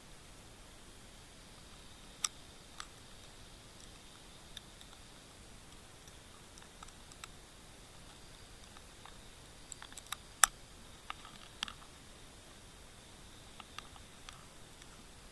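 Underwater recording: a faint steady hiss with scattered sharp clicks, about a dozen of them, the loudest about ten and a half seconds in.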